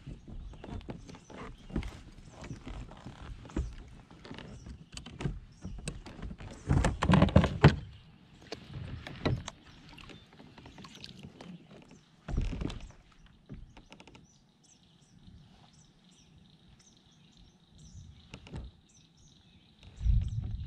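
Knocks, clicks and rattles of gear being handled in a plastic pedal-drive fishing kayak, with a louder thump about seven seconds in and another a little after twelve seconds.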